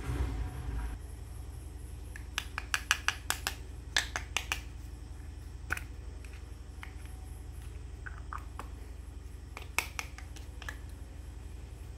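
Miniature plastic toy pots and lids clicking and tapping together as they are handled, with a quick run of clicks a few seconds in and another short cluster near the end, over a steady low hum.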